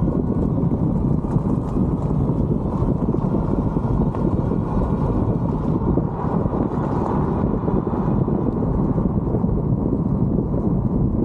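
A steady low rumble of wind buffeting the microphone, mixed with tyre and road noise, as a mobility scooter rolls along a park road.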